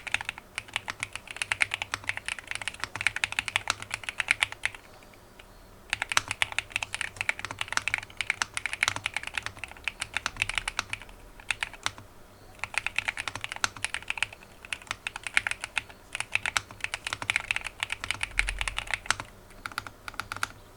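Typing on a GMK67 mechanical keyboard fitted with factory-lubed Akko V3 Pro Yellow linear switches and XDA-profile PBT keycaps. Quick runs of keystrokes are broken by several pauses of about a second.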